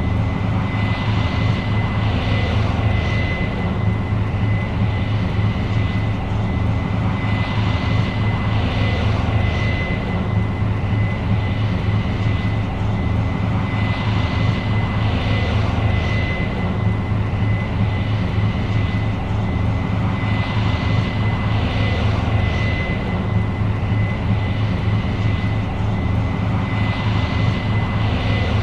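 New Holland CR 7.90 combine running steadily while harvesting corn: a deep engine drone with a thin, steady high whine over it, and a rushing noise that swells and fades every few seconds.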